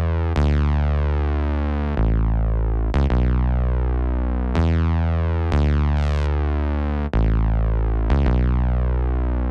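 Synthesizer playing a slow series of sustained low notes, each starting sharply and held for about a second before the next.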